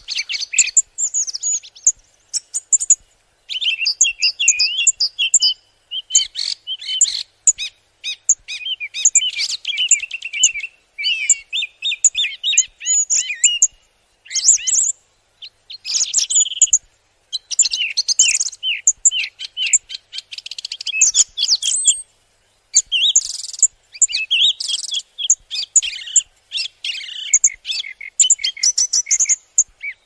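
Small songbird singing a long, varied, high-pitched song of rapid twittering phrases, broken by brief pauses.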